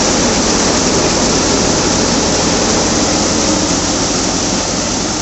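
Sonalika wheat thresher running at full speed, driven off the PTO of a John Deere 5055E tractor turning 2200 rpm: a loud, steady rushing noise from the threshing drum and fans over a low engine hum, as clean wheat pours from the outlet chute into a bucket.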